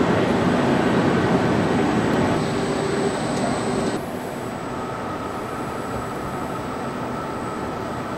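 Loud, dense factory machinery noise with a low steady hum, dropping about four seconds in to a quieter steady hum with a faint high whine.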